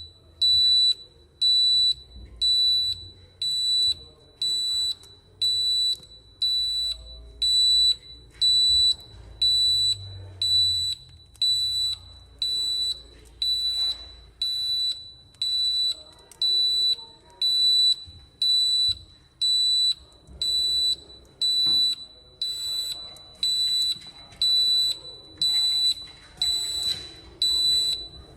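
Fire alarm control panel's internal buzzer beeping a single high-pitched tone about once a second, each beep about half a second long: the pulsed warning of a sounder open-circuit fault on the panel.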